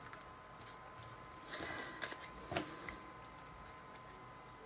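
Faint paper-handling sounds: soft rustling and a couple of light taps as hands press a glued paper globe onto a card and pick up a glue bottle. A faint steady high hum lies underneath.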